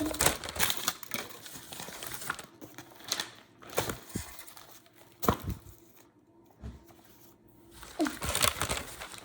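Foil wrapper on a chocolate egg crinkling and tearing as it is peeled off by hand, in irregular bursts of rustling with sharp crackles and clicks.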